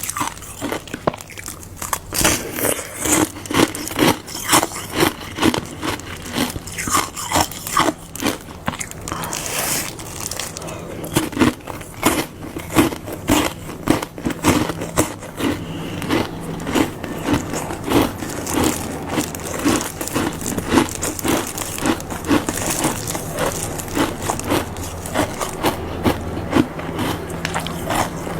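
Ice made of frozen diluted Fanta being bitten and chewed: a rapid, continuous run of crisp crunches, several a second.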